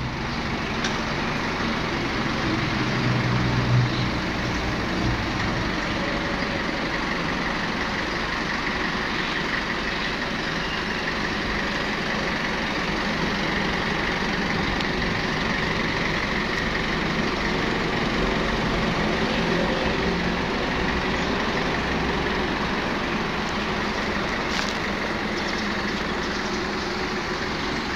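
Toyota 1.5-tonne forklift's engine running steadily as the truck drives forward at low speed, briefly louder about three seconds in.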